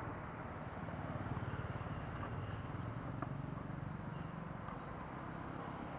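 Road traffic passing: a motor vehicle's engine hum swells about a second in and then eases off, with a faint click about three seconds in.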